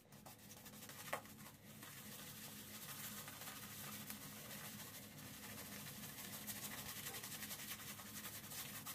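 26 mm synthetic shaving brush swirling shave-soap lather over a stubbly beard: a faint, fast, scratchy rubbing of bristles through foam.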